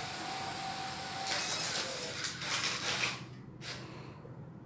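Small electric motors and gears of a remote-controlled robot toy dog whirring as it moves, with a hissing noise in the middle that stops suddenly about three seconds in.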